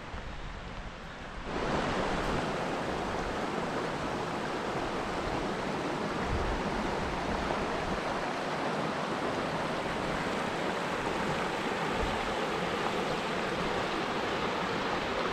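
Shallow river running over rocks and small rapids: a steady rushing of water that starts suddenly about a second and a half in.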